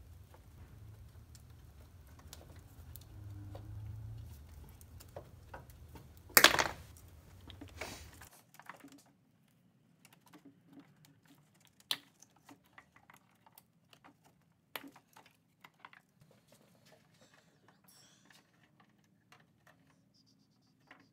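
Hand tools and metal battery-cable parts being handled: scattered light clicks and taps, with one loud sharp sound about six and a half seconds in. A low hum underneath cuts off suddenly about eight seconds in.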